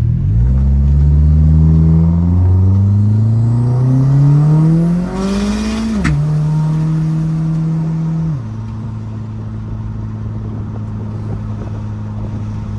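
1997 Mitsubishi Eclipse GSX's turbocharged four-cylinder engine accelerating, revs climbing for about five seconds with a brief step partway. As the throttle closes there is a short sharp hiss with a click, then the revs drop to a steady lower note and step down again near the end. The source of the hiss and click is not known.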